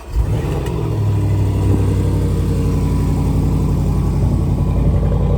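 The 5.0-litre supercharged V8 of a 2014 Range Rover Sport starting up: it catches with a quick flare right at the start and settles into a steady idle.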